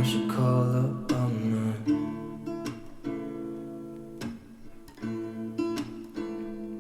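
Background music: an instrumental break of a pop song, with acoustic guitar strumming chords.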